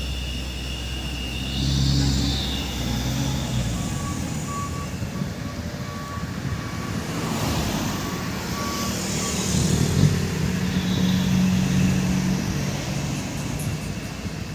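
Truck engine running, with a reversing alarm beeping at a steady rate for several seconds in the middle.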